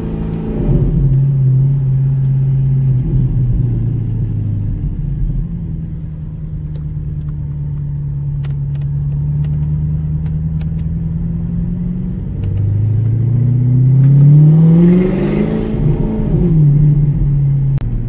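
Audi R8's engine heard from inside the cabin while driving. The engine note rises as the car pulls away and then holds steady while cruising. About twelve seconds in it climbs in pitch under hard acceleration, peaks, and drops back to a steady note near the end.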